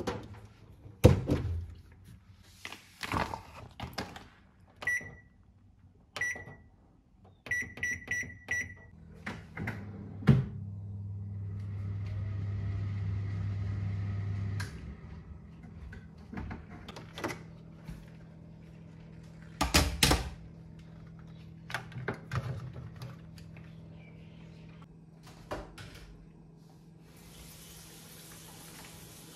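Samsung microwave oven: a few knocks, then its keypad beeps several times in short single tones as buttons are pressed, and the oven runs with a steady low hum for about five seconds before stopping. Scattered knocks and clicks follow, and near the end a kitchen tap runs.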